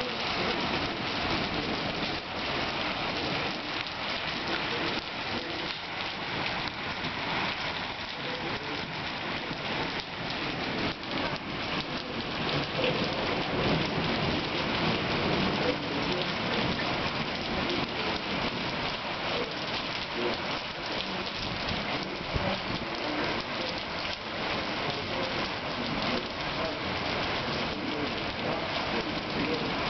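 Heavy rain mixed with small hail falling steadily: a dense, even patter dotted with many small sharp ticks.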